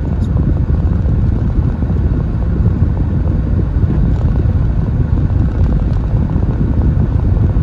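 Steady engine and road rumble of an MG TF sports car being driven.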